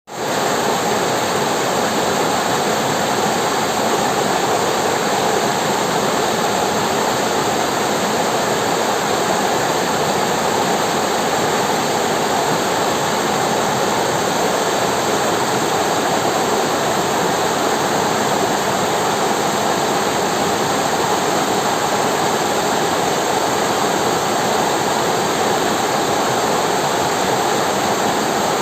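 River water flowing over rocks in a steady, loud rush, with no change in pitch or level.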